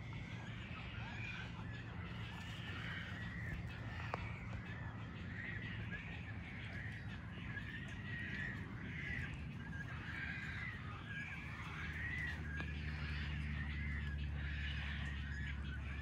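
A dense chorus of many birds calling at once from a crowded nesting colony, short overlapping calls without pause. A low steady rumble joins about twelve seconds in.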